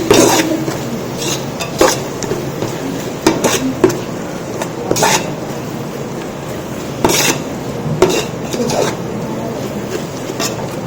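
Metal ladle stirring chilli powder into onion-tomato masala frying in oil in a large pot, scraping with irregular clanks against the pot over a steady sizzle.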